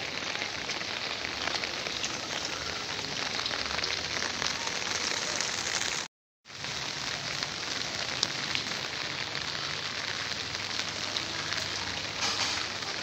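Steady rain falling, a dense even hiss with scattered drop ticks, broken by a brief dropout to silence about six seconds in.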